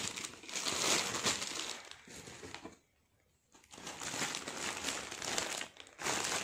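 Plastic packaging crinkling and rustling as a boxed dinnerware set is unwrapped and handled, in two stretches with a brief pause about three seconds in.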